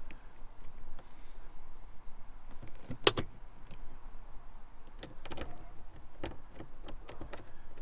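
The campervan's engine idles as a steady low hum under scattered small clicks and knocks from hands working on the wiring. There is one sharp, loud knock about three seconds in.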